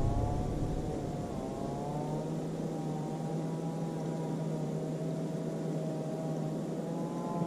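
Bass boat's motor easing off from a loud low rumble to a steady, quieter run, its pitch dipping and recovering in the first second or two.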